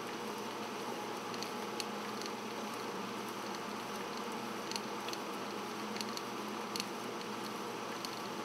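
Steady hum and hiss with a few scattered faint clicks: the playback noise of an old 16mm film soundtrack run on a flatbed editing machine.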